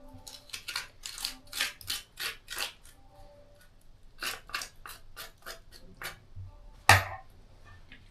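A spoon scraping and scooping the pulp out of a halved horned melon (kiwano) in a run of short strokes, with one sharper knock about seven seconds in.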